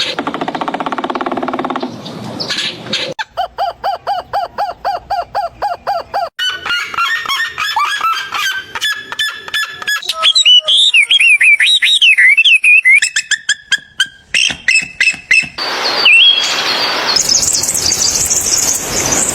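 A run of different animal and bird calls cut one after another, including rapid repeated chirps, warbling and squawking calls, with abrupt changes between them every few seconds.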